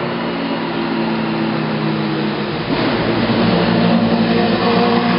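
Racing sports-prototype engine running hard as the car climbs toward the listener. About three seconds in the engine note changes and then holds higher and louder as the car draws near.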